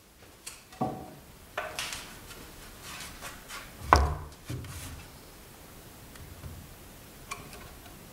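A planed pallet-wood windowsill board being set down onto its glued support blocks and pushed into place: wood knocking and scraping, a few separate knocks with one heavier thump about four seconds in, then a few light clicks.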